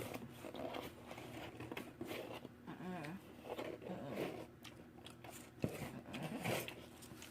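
A person chewing crunchy cocoa-dusted cashew clusters with oats and crisp rice: an uneven run of small, sharp crunches.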